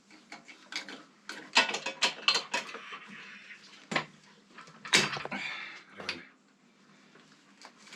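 Metal tools and parts clinking and knocking in irregular strikes as a bracket on the motorcycle's front end is worked loose.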